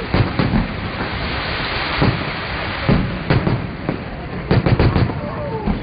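Fireworks display: aerial shells bursting in a string of bangs over a steady hiss, with a quick cluster of bangs about four and a half seconds in.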